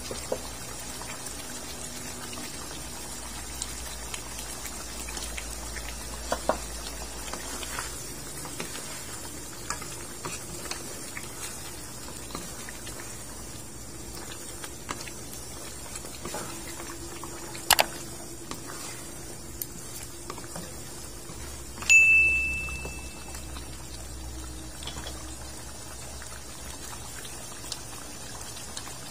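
Pork ribs simmering in a soy-based braising sauce in a pan, a steady bubbling. A few light knocks come from the cooking utensils, and about 22 seconds in there is one louder clank that rings briefly.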